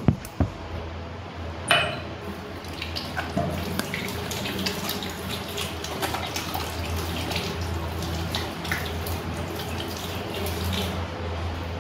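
Tap water running and splashing as hands are washed under it, with scattered small clicks and one sharper knock a little under two seconds in.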